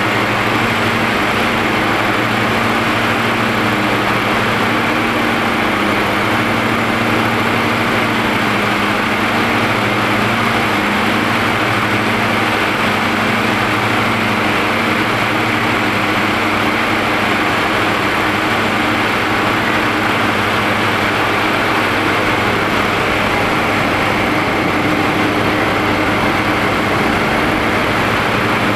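Steady in-flight cabin noise of a Diamond DA42 Twin Star: the twin engines and propellers hum low and even over a broad rush of air.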